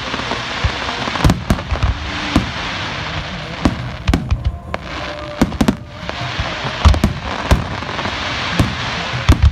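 Aerial fireworks going off: many sharp bangs of bursting shells, some in quick clusters, over a continuous crackling hiss.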